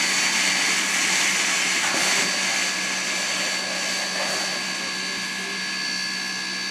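Chinese-built SY-class Mikado steam locomotive venting steam from beneath its cylinder, most likely through the cylinder drain cocks, in a loud steady hiss with thin steady tones running through it. The hiss eases a little after about two seconds as the plume thins.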